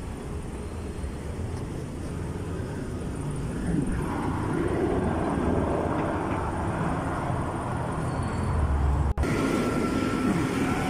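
City street traffic noise with vehicles going by, growing louder about four seconds in, and a momentary gap near the end.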